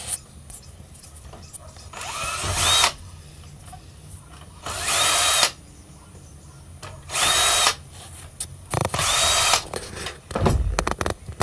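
Power drill backing out four screws, one after another: four short runs, each a whine that rises and then holds, about two and a half seconds apart. A low thump and a few knocks come near the end.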